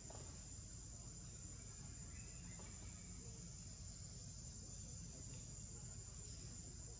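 Steady high-pitched drone of insects, such as crickets or cicadas, held unbroken over a low background rumble.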